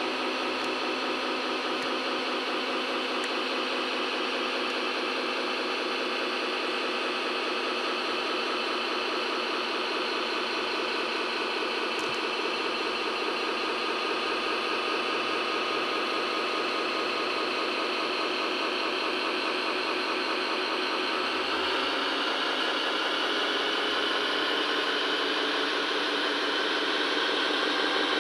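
Electronic sound unit of a radio-controlled MAN truck playing a simulated diesel engine at idle, a steady engine drone through a small speaker. About twenty seconds in its tone shifts a little and it grows slightly louder.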